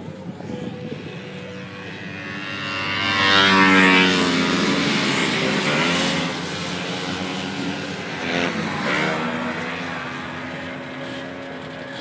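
Racing snowmobiles passing by, their engines loudest about four seconds in with the pitch dropping as they go past, and a second sled passing near eight and a half seconds.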